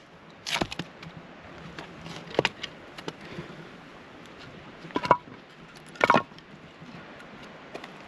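Hatchet splitting wood into kindling: four sharp cracks of the blade striking and splitting the wood, at about half a second, two and a half, five and six seconds in, with lighter knocks of wood between.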